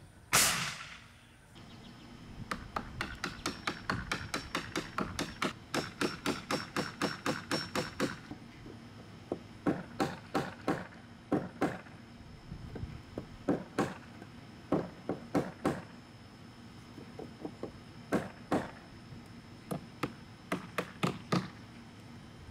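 Hammer driving nails into wood: a fast even run of blows, about four a second, then blows in short groups with pauses between. Just after the start, one louder sharp crack from a pneumatic nailer firing.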